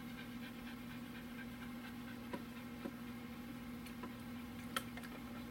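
A few light clicks and taps as a plastic bowl and lid are handled and eggs are poured into a blender jar, the sharpest tap just before the end, over a steady low hum.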